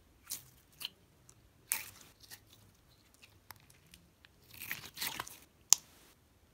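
Thick clear glitter slime being squeezed and pressed between fingers: soft squelches and scattered sticky clicking pops, with one sharp louder pop shortly before the end.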